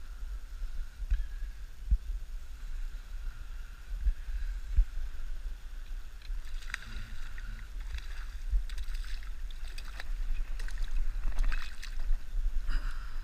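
Steady low rumble of wind and lapping water on a wading angler's action camera, then from about halfway a run of irregular splashes and crackles as a small sheepshead is reeled to the surface and lifted from the water, loudest near the end.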